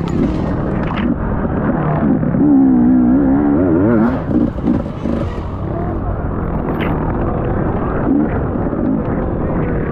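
Dirt bike engine running hard under race load, with a rough rumbling noise throughout. About two and a half seconds in, the revs flick rapidly up and down for a second or so, the loudest stretch.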